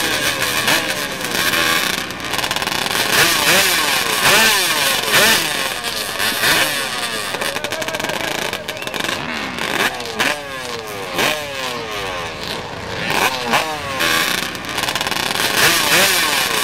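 Yamaha Banshee twin-cylinder two-stroke quad engines revving hard again and again, the pitch sweeping up and dropping back each time.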